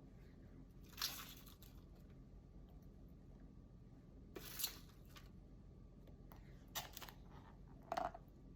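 Four brief scuffing noises a couple of seconds apart over a faint steady hum.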